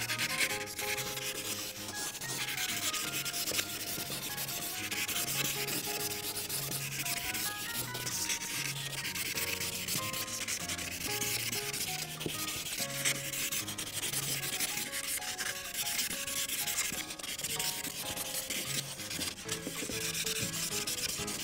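Ohuhu paint marker's tip rubbing steadily across paper, filling in a large area of colour.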